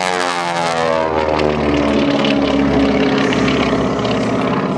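Beech 18's twin radial engines and propellers at high power, their pitch falling over the first two seconds as the plane passes and pulls away, then settling into a steady drone.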